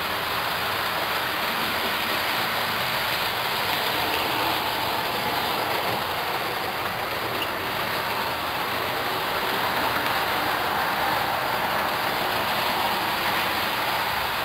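OO gauge Bachmann BR Standard Class 4MT tank model locomotive running steadily over the track, giving an even rolling whirr of its wheels on the rails.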